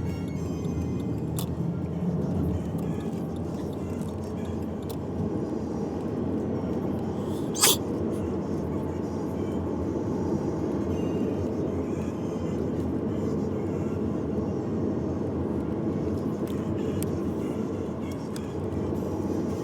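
Steady low rumble with music in the mix, and one short, sharp cough about eight seconds in.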